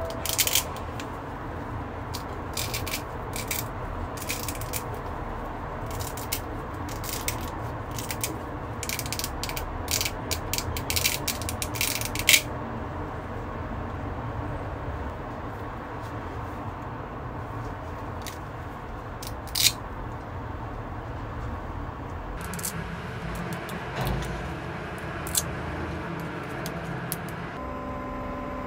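Resin 3D-print support structures snapped and broken off a printed part by hand: a rapid series of sharp, crackling snaps for about the first twelve seconds, then a few single snaps later on.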